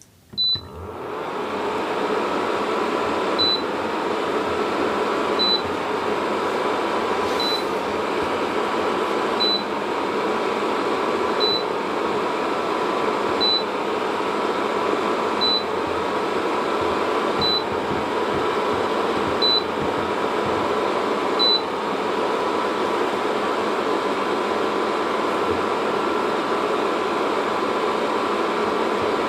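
Induction cooktop with a touch panel: a beep as it is switched on, then its cooling fan spins up over about two seconds and runs steadily. A short high beep sounds every two seconds, about ten times, and stops a little after two-thirds of the way through.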